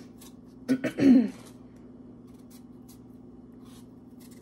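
A woman clears her throat once, about a second in. Faint short scrapes of a small knife peeling a potato follow, over a faint steady hum.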